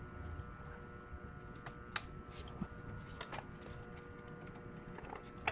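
A few faint, scattered clicks and taps of hand tools on metal over a faint steady hum, in a small shop.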